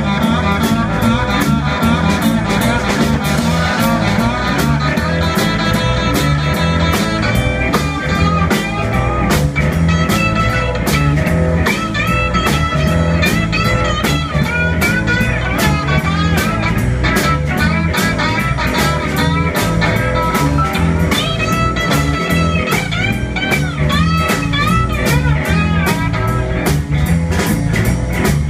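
Live blues band playing an instrumental stretch: an electric guitar lead with bent notes over electric bass and a steady drum beat.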